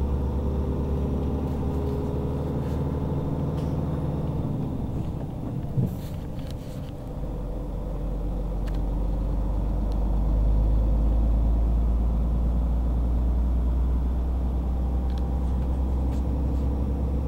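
Heavy diesel engine of a four-axle Empl wrecker truck running under way, heard from inside its cab. It eases off about four seconds in, with a short thump near six seconds, then pulls again with a deeper, louder drone from about seven seconds.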